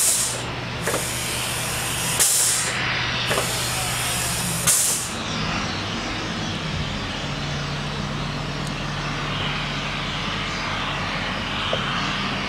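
Crane engine running steadily with a low hum, its note shifting slightly about six seconds in. Three short, sharp hisses break in over the first five seconds.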